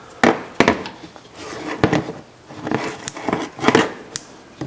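Socket and ratchet working the 15 mm bolt of a serpentine belt tensioner: a run of separate, irregularly spaced metal clicks and clinks as the bolt is loosened.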